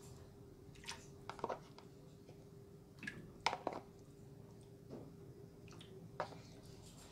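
Pieces of raw chicken dropped into a wok of turmeric coconut broth: a few short, soft wet plops and splashes, the loudest about three and a half seconds in, over a faint steady hum.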